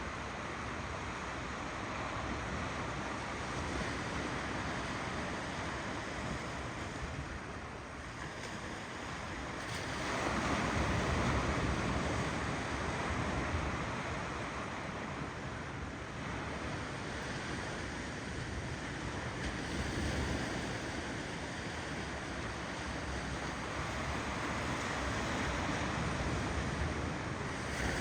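Ocean waves rolling in and washing on a shore. The steady wash swells and ebbs, with the biggest wave breaking about ten seconds in.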